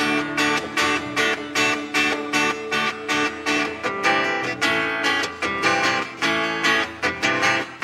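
Live guitar band playing an instrumental passage: acoustic guitars strummed in a steady rhythm of about four strokes a second, with an electric guitar playing along.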